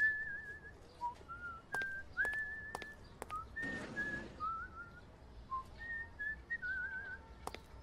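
A person whistling a tune in short, wavering phrases, with a few light clicks and a brief rustle about four seconds in.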